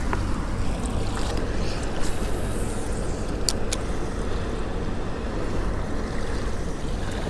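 Steady low rumble of wind on the microphone over open water, with two short clicks about three and a half seconds in.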